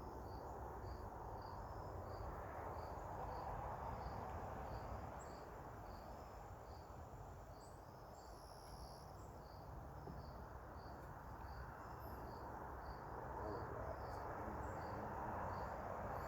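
Honeybees buzzing around an open hive: a dense, steady hum that swells and fades. Over it a cricket chirps steadily, about twice a second.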